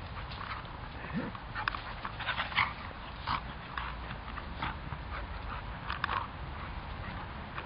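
A Havanese puppy and a mini-Goldendoodle play-fighting, making scattered short dog sounds throughout, the loudest about two and a half seconds in.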